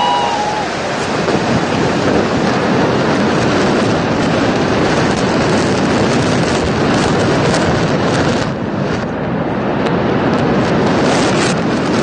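Implosion of a football stadium's stands played backwards: a loud, steady rumble of collapsing concrete and dust, with sharp crackling pops from the demolition charges thickening in the last few seconds.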